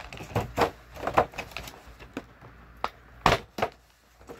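Hard objects from a camping tool set being handled and set down: a run of irregular clicks and clacks, with a louder knock about three seconds in.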